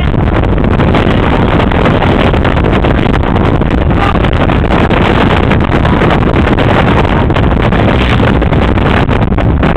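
Loud, steady wind buffeting the microphone inside a moving car, with road noise underneath.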